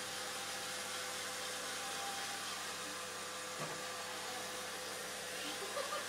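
Roomba robot vacuum cleaner running: a steady whirring hiss with a faint motor whine, and a short soft knock a little past halfway.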